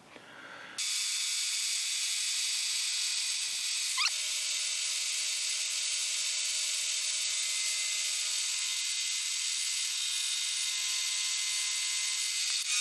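Milling machine spindle starting about a second in and running steadily, with a chamfering bit cutting a 2 mm chamfer into an aluminium part. It gives a steady high whine over a hiss, with a brief rising squeal about four seconds in.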